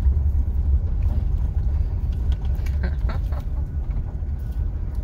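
Cabin sound of a 1997 Dodge Roadtrek campervan rolling slowly along a gravel road: a steady low engine and road rumble. A few short, higher sounds come through about three seconds in.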